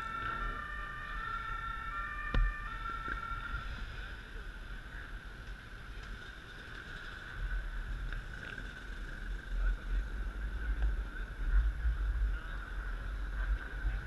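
Ambulance two-tone siren alternating between a lower and a higher note, then cutting out after about three and a half seconds, with a sharp knock about two seconds in. Steady traffic noise follows, with low rumble from passing vehicles that swells in the second half.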